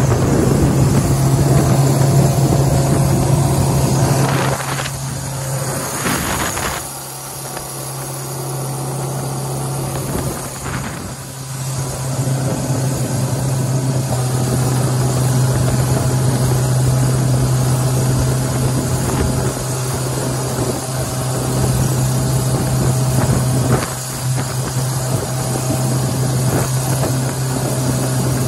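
Jet boat's Ford/Kodiak 2.4-litre inline-four inboard, driving a Hamilton 751 water jet, running steadily under way with a constant low drone over wind and water rush. The level dips for a few seconds about a quarter of the way in, then comes back up.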